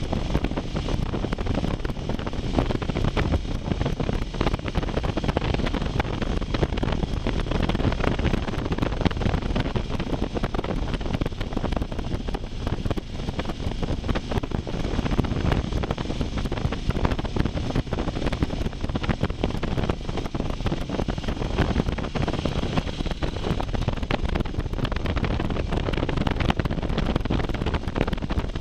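Wind rushing over the microphone of a motorcycle on the move, mixed with engine and road noise. The rush is steady and even throughout.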